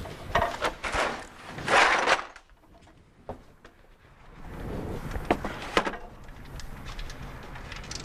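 Hand tools working under the hood of a truck engine, removing a spark plug. The first two seconds hold bursts of scraping and rattling, then a quieter stretch, and then a few sharp metallic clicks and knocks.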